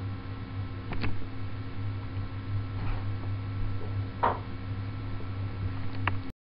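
Steady low electrical hum, with a brief click about a second in, a soft rustle in the middle, and another click near the end.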